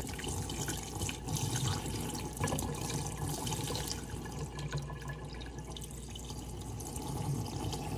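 Running water splashing into a bowl of cherries as a hand swishes them about to rinse them.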